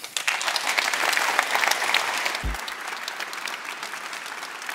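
Audience applauding. The clapping swells within the first second, then slowly dies down.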